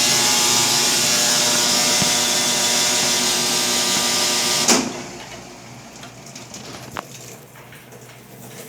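Brastemp BWM08A top-loading washing machine in its spin cycle, a steady mechanical whine with a strong hiss, the spin-cycle noise the machine has developed. About halfway through it ends with a sharp click and drops to a much quieter sound, with another light click near the end.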